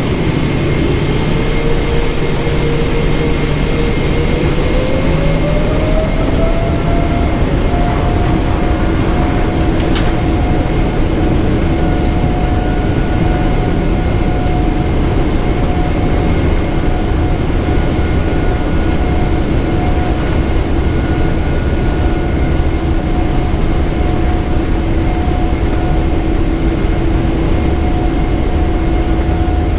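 Jet airliner's turbofan engines heard inside the cabin during the takeoff roll: a steady rumble and roar with whining tones, one of which rises over a few seconds as the engines spool up to takeoff thrust, then holds steady.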